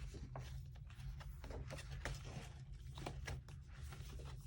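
Faint rustling and light taps from handling plastic packaging, a few short scattered sounds over a low steady hum.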